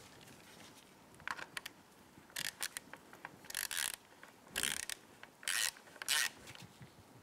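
Hand ratchet with a socket on an extension clicking in several short bursts as it runs down the bolts of a motorcycle's plastic engine cover.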